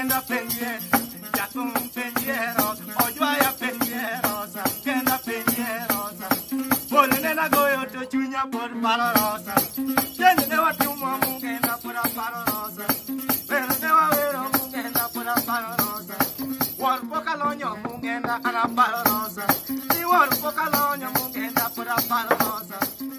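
Nyatiti, the Luo bowl lyre, plucked in a fast repeating pattern with a steady low drone, over a constant metal jingling rattle kept in time by the player's foot. A man sings over it.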